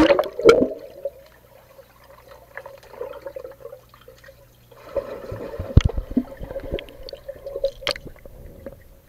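A splash as the camera plunges into swimming-pool water, then muffled underwater sound heard through the submerged camera: gurgling and a faint steady hum. From about five seconds in there is louder sloshing with several sharp knocks as swimmers move close to it.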